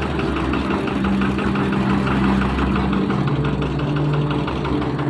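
Engine running steadily at idle, with a fast, even knock.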